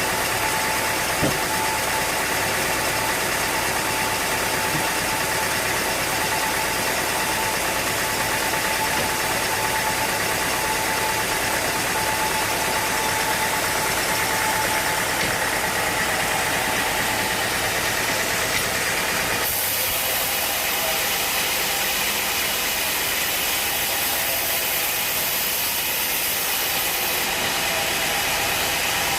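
Sawmill machinery running steadily with an engine-like drone and a steady whine. About two-thirds of the way in the lower part of the sound drops away and a high hiss comes in for several seconds.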